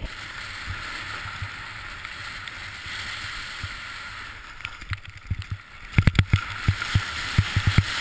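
Wind noise on the microphone and a snowboard sliding over snow, with a run of sharp knocks and thumps from about five seconds in, loudest near the end.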